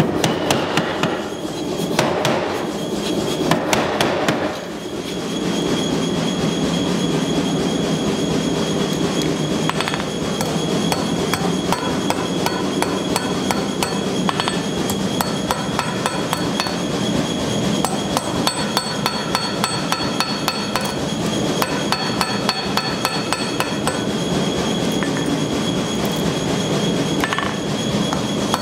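Hand hammer striking a hot steel knife blank held in tongs on an anvil: a few heavy blows at first, then a long run of quick, regular strikes. A steady machine rumble runs underneath.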